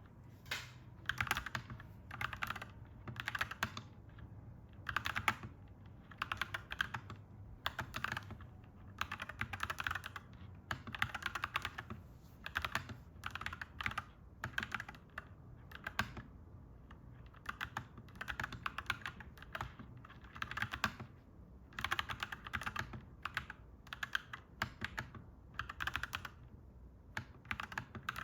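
Clacky mechanical keyboard being typed on in bursts of a second or two with short pauses between, over a faint steady low hum.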